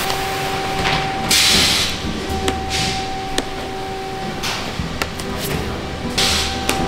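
Sheets of carbon fibre and their paper backing being lifted, peeled and flipped on a workbench. Several loud rustling swishes and a few sharp ticks play over a steady machine hum.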